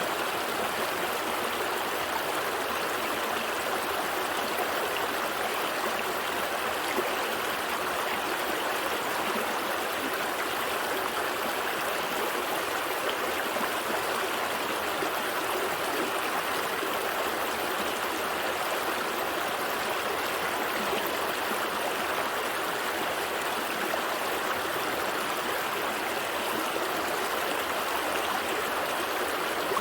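Gentle stream flowing, a steady, unbroken babble of running water.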